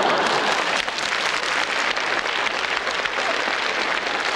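A large audience applauding steadily, a dense even clapping in response to a joke's punchline.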